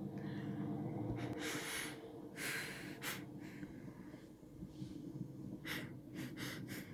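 A person breathing and sniffing close to the microphone: several short, noisy breaths in the middle and a quick cluster near the end, over a steady low hum.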